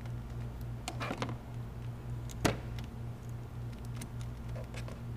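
A plastic wire-tap connector being pressed and clamped onto a wiring-harness wire with pliers, tapping the wire without cutting it. There are a few light clicks and one sharp snap about two and a half seconds in, over a steady low hum.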